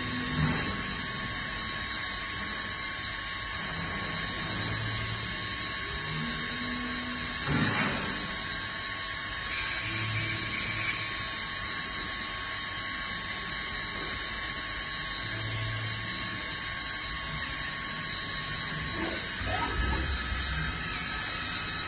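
WMT B20 5-axis Swiss-type CNC lathe running a machining cycle: a steady machine tone with a low pulse every couple of seconds as the axes and tools move, and a few sharp clacks, one about a third of the way in and a cluster near the end.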